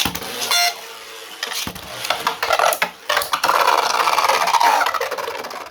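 3D-printed Beyblade spinning tops in a stadium, scraping and grinding against each other with many sharp clashing knocks, loudest in the second half.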